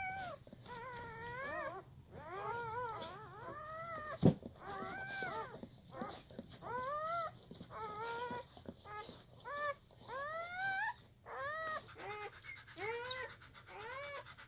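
Newborn German Shepherd puppies crying, a steady run of short, high-pitched squeals that rise and fall, one to two a second. A single sharp knock about four seconds in.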